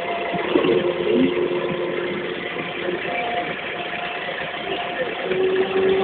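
McCormick MC90 tractor's diesel engine running steadily at low speed, heard from the cab.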